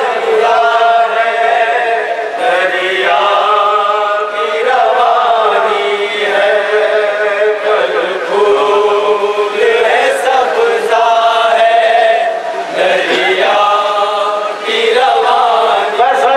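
A man chanting a noha, a mourning lament in Urdu, solo in long, held, wavering melodic lines.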